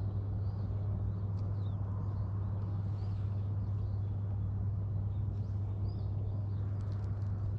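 Outdoor ambience: a steady low hum, with faint scattered bird chirps over it.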